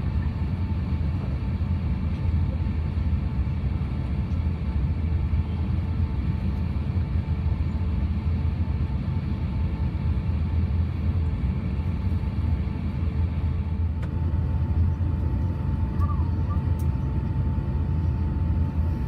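Steady low cabin rumble inside an Airbus A350-900 airliner with its Rolls-Royce Trent XWB engines running, a faint steady hum over it.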